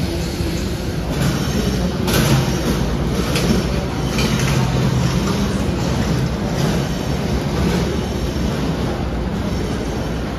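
Steady rumble of trains standing at the platforms under a covered train shed, with the rattle of rolling suitcases on the concrete.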